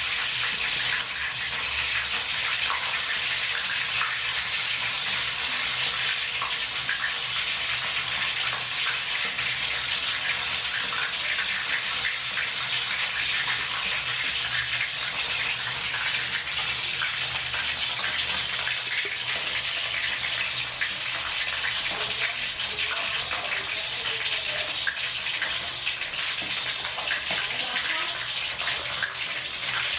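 Hot oil in a wok sizzling steadily around a whole fish and garlic cloves as they fry: a dense hiss with many small crackles and pops.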